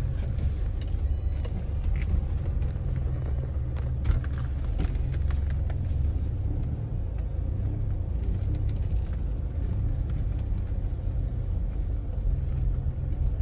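A vehicle on the move: a steady low rumble, with a few brief clicks about four to five seconds in.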